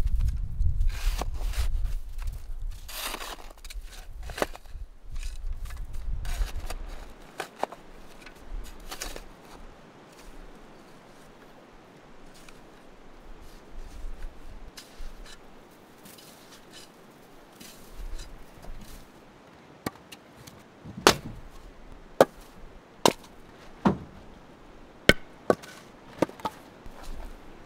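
A plastic snow shovel scraping and scooping snow out of a stone fire ring. Later a run of sharp chops about a second apart as firewood is split, pieces knocking onto the snow.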